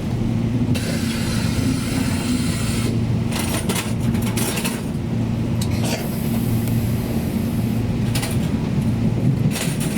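Tze-Chiang express train running, heard from inside the carriage: a steady low rumble of wheels on the track, with a hiss that comes and goes and a few sharp clicks.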